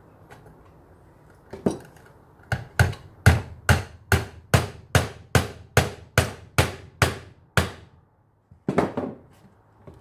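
Hammer driving a small nail into the top edge of an old wooden box. One light tap comes first, then a quick, even run of about fifteen blows at roughly three a second, and two more strikes near the end.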